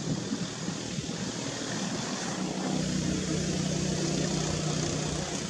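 A distant engine hum, steady in pitch, growing louder from about halfway through.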